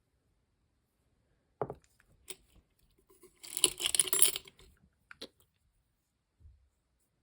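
Small metal jewelry pieces clinking and jingling together as they are sorted by hand, a cluster of rapid metallic clinks lasting about a second in the middle, with a few single clicks before and after.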